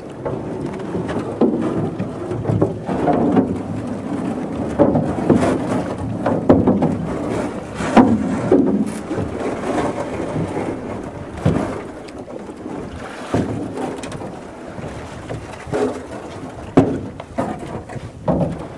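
Small boat being pushed and poled through broken floating ice: ice chunks grinding and scraping along the hull, with irregular sharper knocks of ice and pole against the boat.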